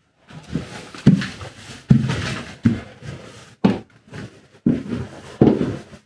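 Footsteps climbing a wooden staircase: a steady series of heavy thuds a little under a second apart.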